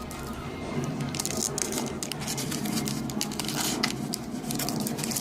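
Crinkly plastic card packaging being handled and worked at by hand, a dense run of irregular crackles and crinkles while the packs resist being opened.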